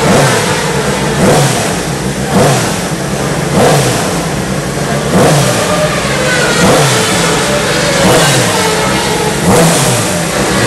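Suzuki GSX-R1000 World Superbike race engine being warmed up, with the throttle blipped over and over so the revs rise sharply and fall back every second or so.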